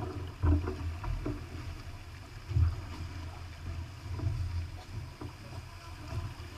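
Wind buffeting the microphone aboard a sailboat under sail, coming in low rumbling gusts: the strongest about half a second in and again a little after two and a half seconds. Under it runs a steady hiss of wind and water.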